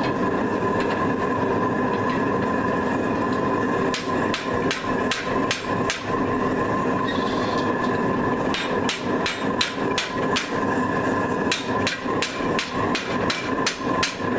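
Hammer blows on hot steel bar, coming in runs of sharp strikes about two to three a second from about four seconds in, over a steady machine hum.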